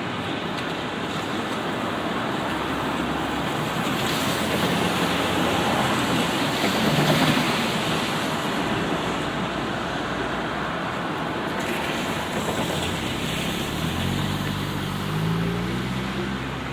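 Light rain on a city street, with a steady hiss. A vehicle passes on the wet road, its tyre hiss swelling and fading, and near the end an engine hum rises in pitch as a vehicle pulls away.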